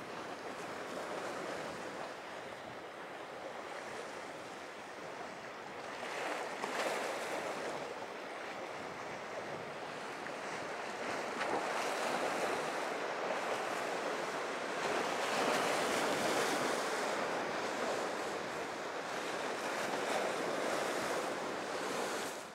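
Rough sea and surf washing, with wind buffeting the microphone. The rush swells louder several times and has no clear engine note.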